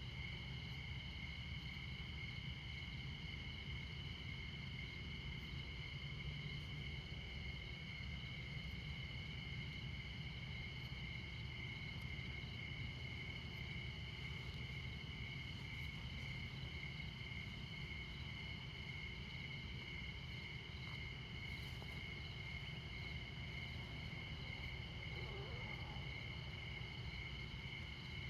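Crickets chirping steadily at two high pitches, over a steady low rumble of interstate highway traffic.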